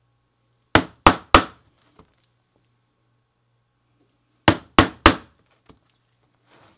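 Mallet striking a five-prong stitching chisel through thick leather, punching stitch holes. Two sets of three sharp blows, about three a second, a few seconds apart, each set followed by a faint tick.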